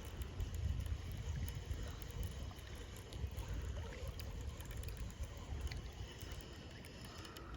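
Wind buffeting the microphone in a gusting low rumble, over a faint outdoor hiss with a few light ticks.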